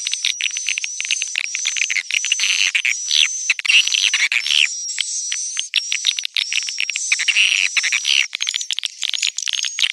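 Edible-nest swiftlets twittering: a dense, unbroken stream of high chirps and rapid clicks with short whistled notes, the kind of swiftlet call sound played to lure the birds into a nesting house.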